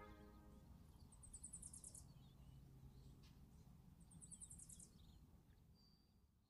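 Faint outdoor quiet in which a small bird gives two short, very high, fast trills about a second long each, one about a second in and another past the middle, over a faint low hum.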